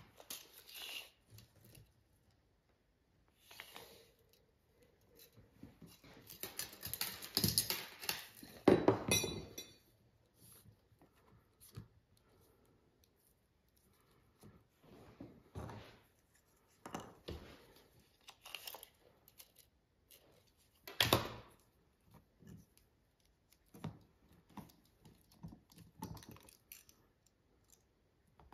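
Leatherworking tools being handled on a workbench: scattered small clicks and knocks, a busier stretch of rustling and clattering about six to ten seconds in, and one sharp knock about twenty-one seconds in.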